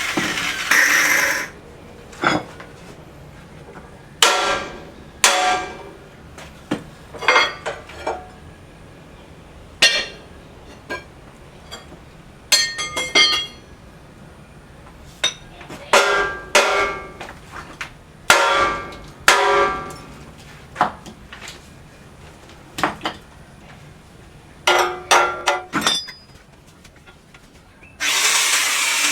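Hand hammer striking steel: ringing metallic clanks at irregular intervals, some singly and some in quick runs of two or three. Steady power-tool noise runs for the first second or so and starts again near the end.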